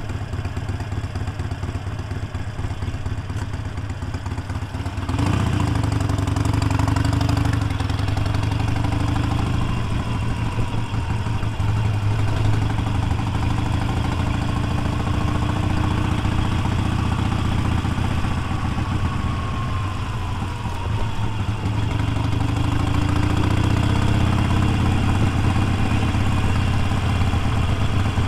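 Motorcycle engine running while riding. About five seconds in it gets louder and rises in pitch, with a short dip soon after, then holds a steady cruise with slow rises and falls in pitch.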